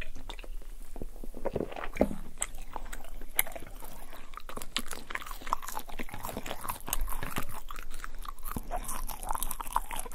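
Close-miked eating sounds: chewing and crunching on a chicken quesadilla and fries, with wet mouth sounds and a steady run of small irregular crackles.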